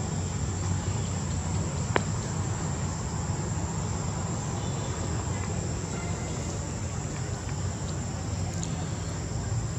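Steady, high-pitched insect drone over a low rumble, with one sharp click about two seconds in.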